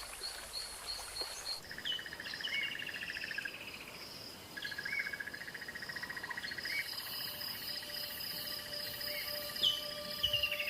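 Bush ambience of insects trilling in long, evenly pulsed runs, with short bird calls and a few quick high chirps over them.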